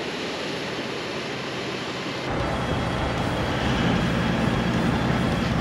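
Water rushing over rocks in a river, a steady hiss. About two seconds in it gives way to a 4x4 driving on tarmac: a steady engine hum with tyre noise.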